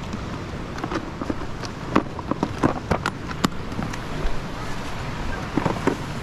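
A string of irregular clicks and knocks over a steady rush of wind and water noise.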